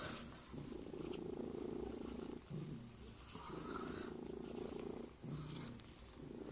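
Domestic cat purring in long stretches of about two seconds, broken by short pauses.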